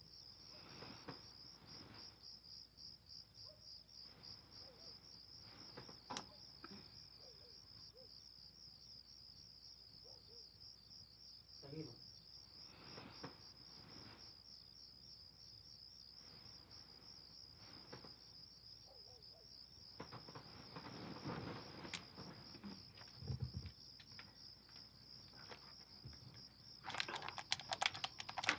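Crickets chirping steadily, a faint fast-pulsing high trill. Near the end a rapid run of clicks and taps begins.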